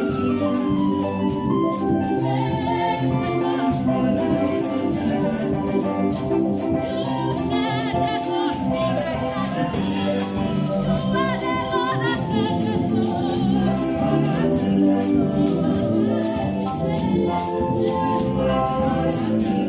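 Choir singing a gospel praise song with instrumental backing and a steady shaker rhythm.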